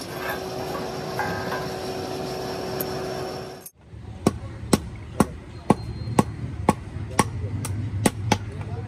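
A steady hum with a few held tones for about the first three and a half seconds. After a sudden break, a hand hammer strikes red-hot leaf-spring steel on a small stake anvil, evenly at about two blows a second.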